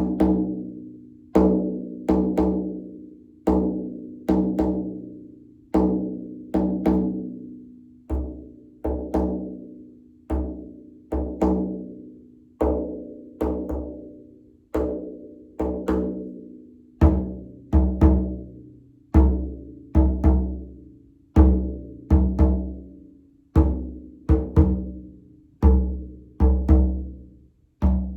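Frame drum struck in a slow, steady beat, each stroke ringing and fading before the next. The strokes turn deeper and fuller about two-thirds of the way through.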